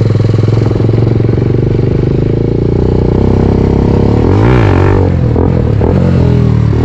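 Sport motorcycle engine running steadily while riding. About four and a half seconds in, the engine note briefly rises and falls.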